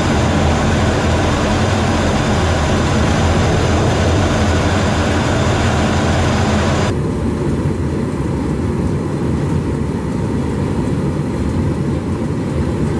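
Jet aircraft engine noise, a steady loud rush that suddenly turns duller about seven seconds in.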